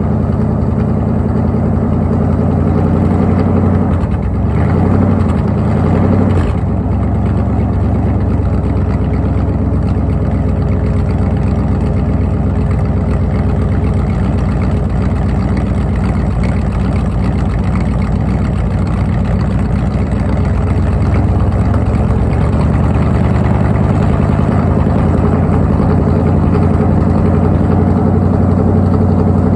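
Ford 302 small-block V8 in an F-150, running through its exhaust at a cold-start idle while still warming up. The revs rise briefly about four to six seconds in, then settle back to a steady idle.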